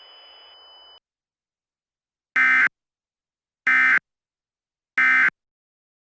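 Emergency Alert System SAME end-of-message code: three short, harsh, buzzing digital data bursts, each a fraction of a second long and just over a second apart, marking the end of the alert. A faint hiss stops about a second in.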